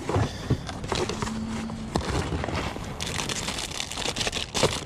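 Rummaging through a cardboard box of belongings: irregular rustling and crinkling, with light knocks and clicks as items are shifted.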